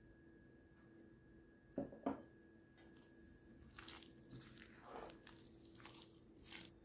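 Two sharp knocks about two seconds in, then a spoon stirring chopped cornelian cherries, plums, herbs and sugar in a bowl, making quiet, wet squelching and scraping sounds.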